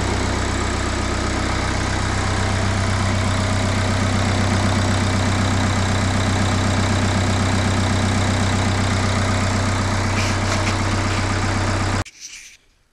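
Renault 1.5 dCi four-cylinder turbodiesel idling steadily on its test run with a freshly fitted timing belt. It cuts off suddenly near the end.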